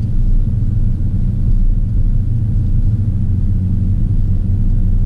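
Steady low rumble of a Porsche Cayenne driving, heard from inside the cabin: engine and tyre noise on the road, with no sudden sounds.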